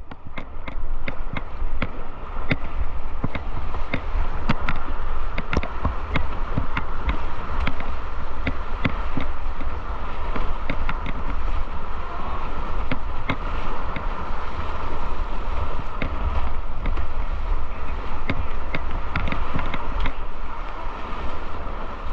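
Fast, high river water rushing steadily around a paddled boat, with wind buffeting the microphone and frequent sharp clicks and knocks scattered throughout.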